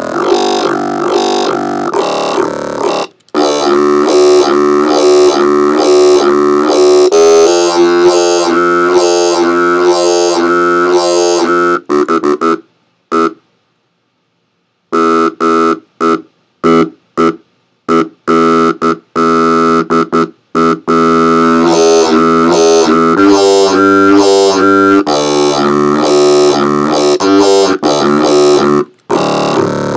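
Synthesized bass patch from an FM8 synthesizer run through an EQ, played as long held notes whose tone changes in steps. Near the middle it breaks into a run of short stabs with a pause of about two seconds, then is held again.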